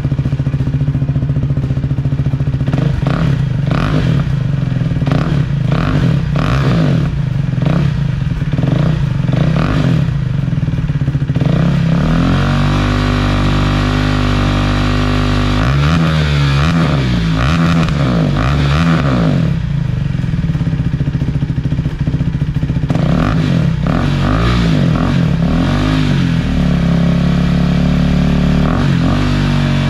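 2019 Husqvarna Svartpilen 401's single-cylinder engine running through an aftermarket mid pipe and a slip-on silencer with no baffle fitted: loud and bangy. It idles with sharp pops for the first ten seconds, is held at a higher rev about twelve seconds in, then is blipped up and down several times.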